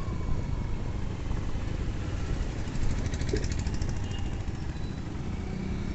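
Steady low rumble of a vehicle on the move: engine and road noise while driving.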